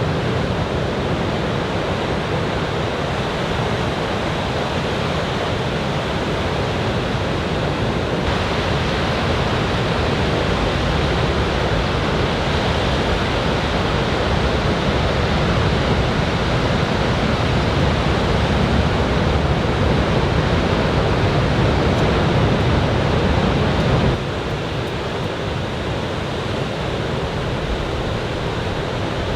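Ocean surf breaking on a beach from a typhoon swell: a steady, loud rush of waves with no distinct individual strikes. Near the end it drops suddenly to a lower level.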